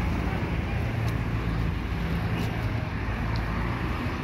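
Street traffic with a motor vehicle's engine running close by, a steady low hum.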